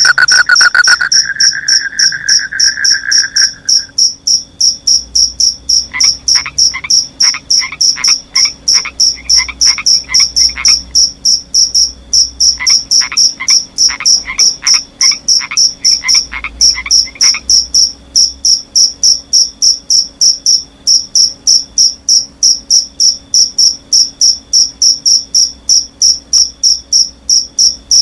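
Forest insects chirping in a steady high pulse, about three a second, with a frog calling in two runs of quick repeated notes, each a few seconds long. A lower continuous insect trill stops about four seconds in.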